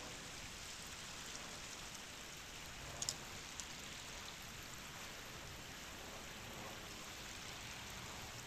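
Shallow creek water running over stones, a steady hiss, with a couple of sharp clicks about three seconds in.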